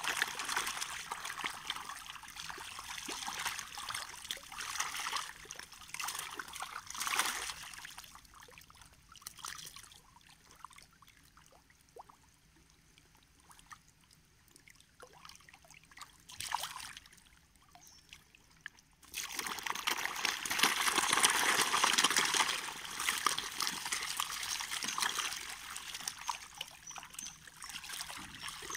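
A crowd of catfish splashing and churning the water as they feed at the surface. The splashing dies down for a while in the middle and comes back suddenly, louder, about two-thirds of the way through.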